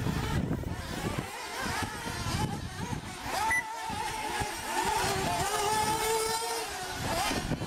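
Several radio-controlled off-road racing cars running on a dirt track, their small motors whining and revving up and down as they pass, one held high and slowly rising about halfway through.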